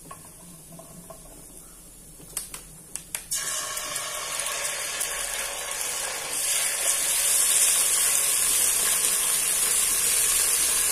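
A few sharp clicks, then ketchup sizzling as it is squeezed into a hot pot of onion and garlic browned in butter, starting about three seconds in and getting louder about halfway through.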